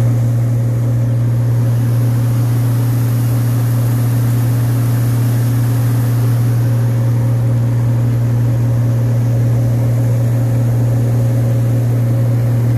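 Gleaner combine harvester running steadily at working speed: a constant loud low hum with a faint higher whine over it.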